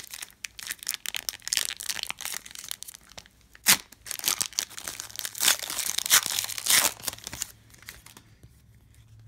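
Wrapper of a Panini Prizm basketball trading-card pack being torn open and crinkled, with one sharp snap about three and a half seconds in; the rustling dies away near the end.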